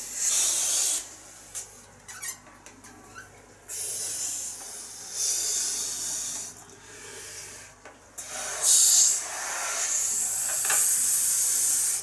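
A long latex balloon being blown up by mouth: about five forceful, hissing breaths of air pushed into it, the last the longest, with pauses for breath in between.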